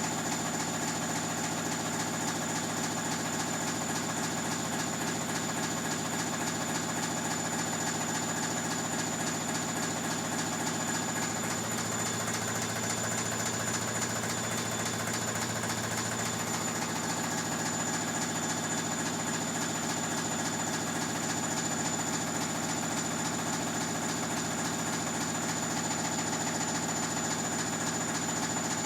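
Bosch Classixx 6 Vario Perfect washing machine running with a steady motor hum and a thin high whine; a deeper hum swells for about five seconds around the middle.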